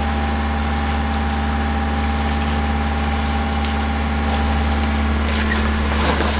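Sailboat's inboard engine running steadily with a deep, even drone while the boat motors through a large ship's wake. A brief burst of rushing noise comes near the end.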